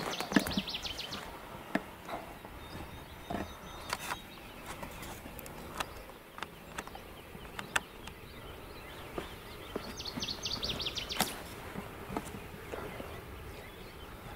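Open-field ambience with a bird trilling twice, a rapid run of high notes lasting about a second, at the start and again about ten seconds in. Scattered faint clicks and ticks are heard between the trills.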